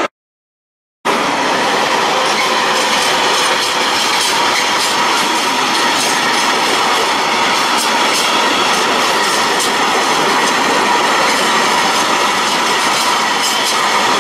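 Freight train of covered wagons rolling past close by: a steady loud rush of wheels on rail with repeated clicks over the rail joints. It cuts in abruptly about a second in, after a moment of silence.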